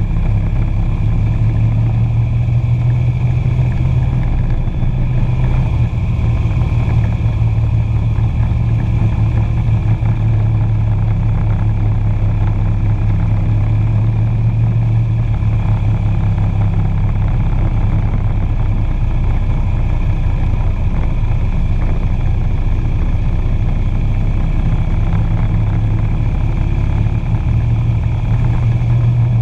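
Motorcycle engine running steadily at road speed, heard from the bike itself, with wind and road noise over it. Its pitch and strength shift slightly now and then with the throttle.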